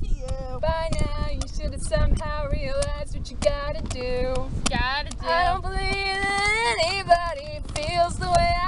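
Young women's voices singing, with long held notes and sliding pitch, over a low wind rumble on the microphone.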